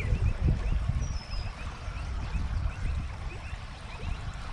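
Wind buffeting the microphone with an uneven low rumble. A faint, short high chirp repeats about three times a second through it.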